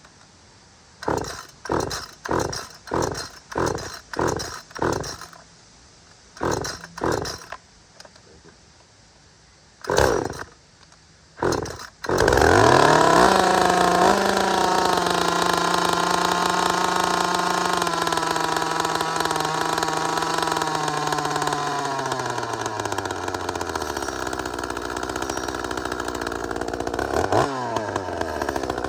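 Two-stroke top-handle chainsaw, freshly fitted with a new primer bulb, pull-started with about a dozen pulls of the starter rope before it catches about twelve seconds in. It runs fast at first, then its speed falls to a low idle, and it is revved once near the end.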